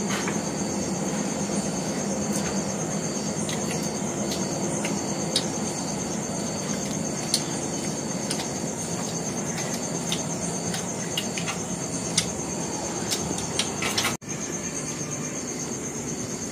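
Chewing and eating sounds from two people eating pizza by hand, with scattered small clicks and smacks. Under them a steady background hiss and a constant high insect drone, briefly cut out near the end.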